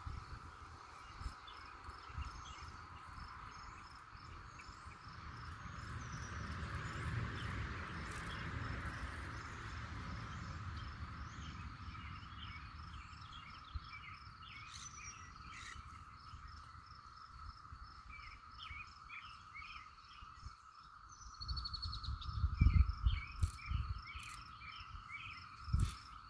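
A chorus of calling insects and frogs: a steady drone with a regular run of high ticks and clusters of short chirps over it. Low rumbling bumps, like wind or handling on the microphone, come near the end.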